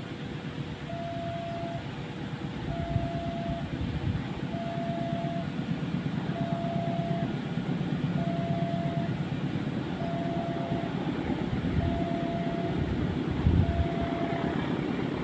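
Level crossing warning alarm sounding one steady tone of under a second, repeating about every two seconds, over the low rumble of an approaching diesel-hauled passenger train that grows louder toward the end.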